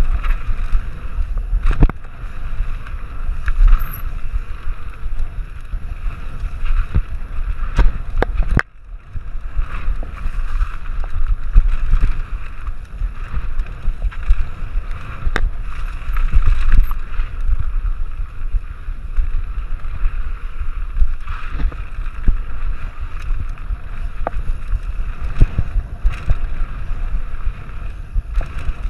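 Mountain bike clattering down a dirt singletrack at speed, with wind rushing over the camera microphone and sharp knocks as the bike hits bumps and roots. The noise drops away briefly about nine seconds in, then comes back.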